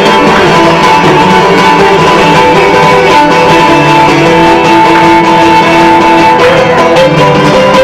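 Live Cretan dance music from a band: plucked string instruments strum along under a sustained melody line.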